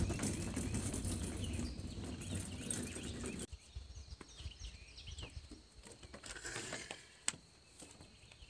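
Birds chirping at a lakeside at dawn. For the first three and a half seconds a low rumble of a wagon cart's wheels rolling over wooden pier boards sits under it, cutting off abruptly; after that only the birds and a few light clicks remain.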